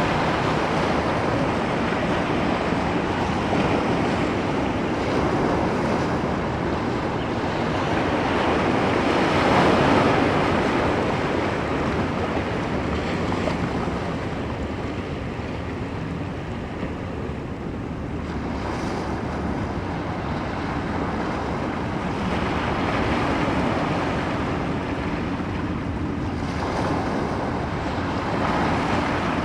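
Ocean waves breaking and washing on the shore: a continuous surf rush that swells and eases every few seconds, loudest about ten seconds in.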